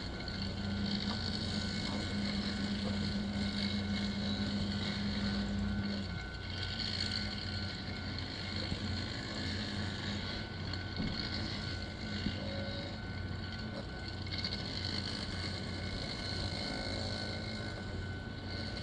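Engine-driven track-maintenance machinery running steadily, a low engine hum under a constant thin whine. A deeper drone drops out about six seconds in.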